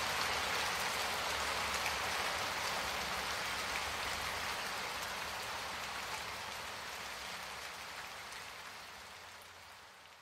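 Rain sound effect: a steady hiss of falling rain that comes in suddenly and slowly fades out over about ten seconds.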